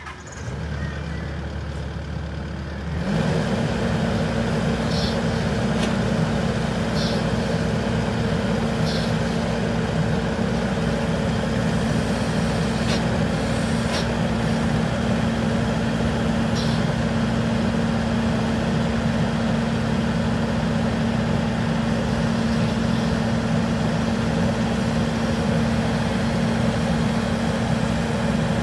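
Takeuchi TB290 excavator's diesel engine idling low, then about three seconds in the throttle is raised and it runs steadily at higher revs. A few faint sharp clicks sound over it.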